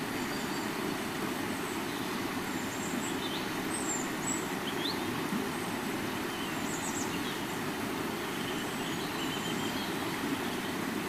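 River water flowing in a steady, even rush, with a few faint high chirps.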